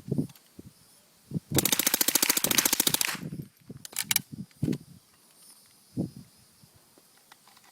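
Uzi submachine gun with a slow-fire converted .22 LR bolt firing one fully automatic burst of about a second and a half, the shots coming fast and evenly spaced. A few single sharp clicks or knocks follow.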